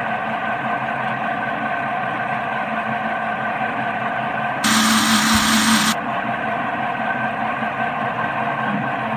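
Countertop electric blender running steadily, whipping garlic, milk and oil into a garlic sauce. About halfway through it gets louder for a little over a second.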